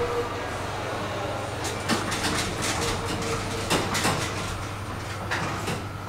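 Passenger elevator car running: a steady low hum with scattered rattles and clicks.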